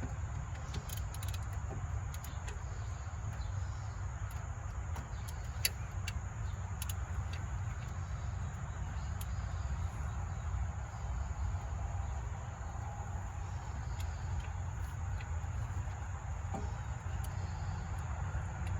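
Steady low rumble with scattered faint clicks, typical of hand tools such as a ratchet and extension being handled while working on a belt.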